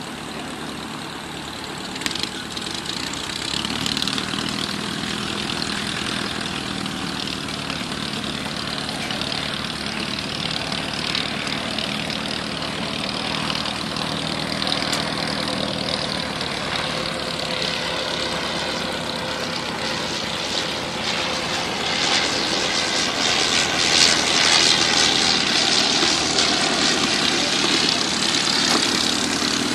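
Radio-controlled model aircraft motor and propeller noise with wind rush, heard from a camera flying with the aircraft. It runs steadily, then grows louder about two-thirds of the way through, with a sweeping change in tone.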